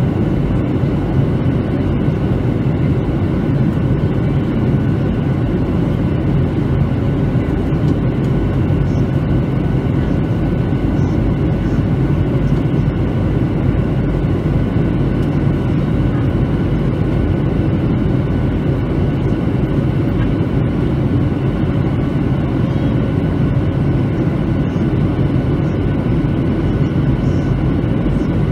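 Boeing 737-900 cabin noise in flight, heard at a window seat over the wing: the steady rumble of airflow and the CFM56 engines, with faint steady tones above it.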